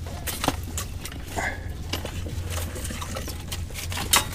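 Scattered small clicks and knocks of fishing gear being handled, as the rod is held with the bail open and the underwater camera is pulled up through the ice hole. There is one sharper knock about four seconds in, over a steady low hum.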